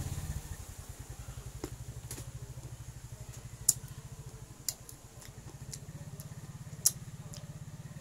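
Crisp green mango being bitten and chewed: a few sharp, short crunching clicks, two of them much louder, about halfway through and near the end. Under them runs a steady low engine-like hum.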